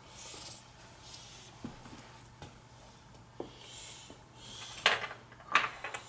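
Quiet handling noises: a few light clicks and rubs, then two louder short scuffs, one about five seconds in and one just before the end. A faint steady low hum runs underneath.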